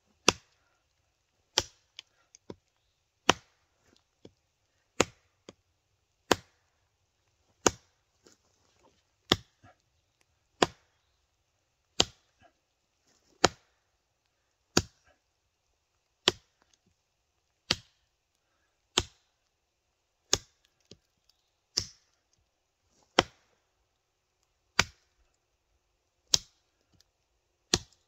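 Odenwolf W machete, a heavy D2-steel chopper, chopping into a freshly downed pine log with steady, even strokes, about one every second and a half, with a few fainter knocks between them.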